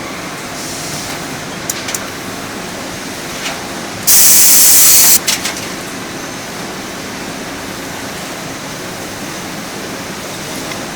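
CNC spring-making machine running with a steady mechanical hum and a few sharp clicks, and a loud hiss lasting about a second near the middle.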